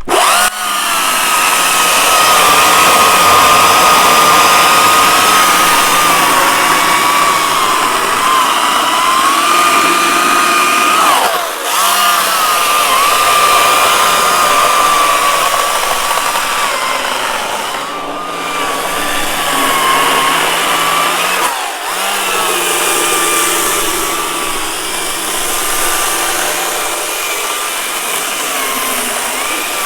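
GreenWorks Commercial 82-volt battery chainsaw running flat out and cutting through a branch, its electric motor giving a steady high whine whose pitch wavers under load. The motor drops off and spins back up briefly about a third of the way in and again about two-thirds of the way in.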